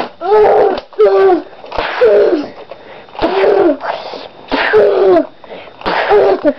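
A child's voice letting out a rapid series of loud, sneeze-like vocal bursts, about one a second. Each is a sharp noisy burst dropping into a short falling cry.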